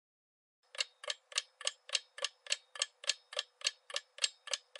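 Ticking-clock sound effect timing the answer pause: fast, even ticks, about three and a half a second, starting just under a second in.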